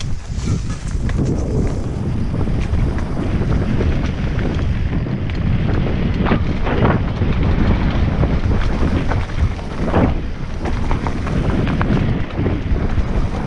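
Wind buffeting the microphone of a mountain bike's handlebar camera on a fast dirt-trail descent, over the tyres rolling on dirt and stones. The bike rattles with frequent small knocks, and a few louder scrapes come around the middle.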